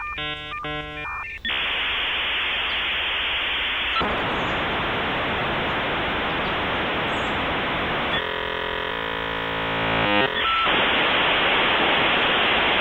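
Dial-up modem connecting over a telephone line. A quick run of tone bursts comes first, then a long hiss of static. About two thirds of the way through, a couple of seconds of stacked buzzing tones break in, and then the hiss returns.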